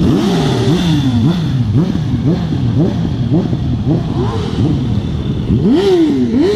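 Several motorcycles passing at low speed, engines revving up and down over and over as the riders blip their throttles, with two sharper revs near the end.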